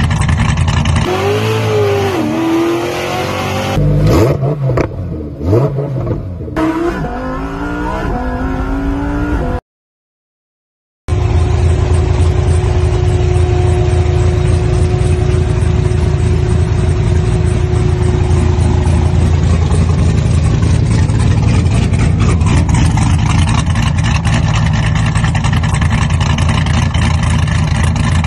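Chevrolet Corvette V8 exhaust being revved in quick blips that rise and fall, cut by a brief dropout about ten seconds in, after which the engine runs steadily.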